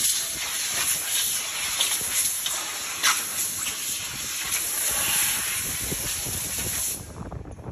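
Compressed-air blow gun hissing steadily as it blasts across the open mould of a rubber vulcanizing press, clearing the mould. A sharp knock comes about three seconds in, and the hiss cuts off near the end.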